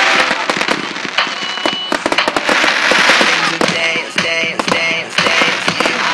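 Aerial fireworks bursting: a dense run of sharp bangs and crackling, with a hissing crackle swelling about two and a half seconds in.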